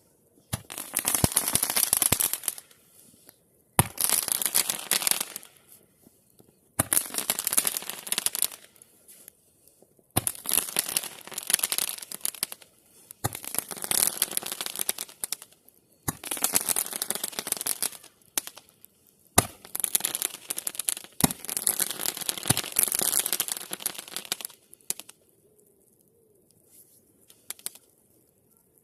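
Roman candle firing a series of about eight shots, roughly three seconds apart, each a sharp pop followed by about two seconds of crackling hiss. The shots stop a few seconds before the end, leaving only faint crackles.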